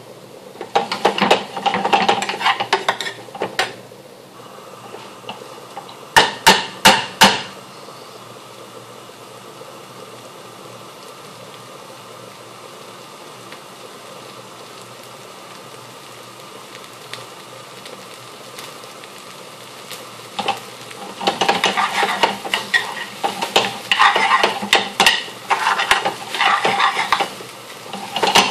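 Metal spoon stirring and scraping biryani rice in an aluminium pan, with four sharp metal taps on the pan about six seconds in. A long stretch of low, steady hiss follows from the pan on the heat. From about twenty seconds in there is dense clattering and scraping as the rice is stirred and the pan is tossed on the hob.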